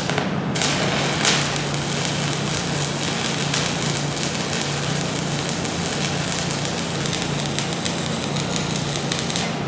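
Stick (shielded metal arc) welding arc struck at the start and burning with a steady crackle over a low hum, then broken off just before the end. This is a test weld with a newly fitted electrode holder and ground clamp.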